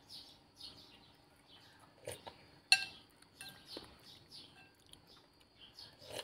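A metal fork clinks sharply once against a ceramic bowl, with a ring after it and a few softer taps around it. Small birds chirp repeatedly in the background.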